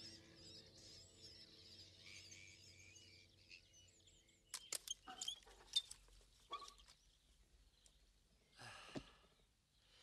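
Quiet woodland ambience with small birds chirping and warbling. About halfway through comes a quick cluster of sharp clicks, and near the end a short breathy rush.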